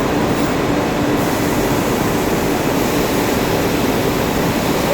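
Steady, loud hum and rush of textile-mill machinery, carding machines running, with a faint steady tone under it and no let-up.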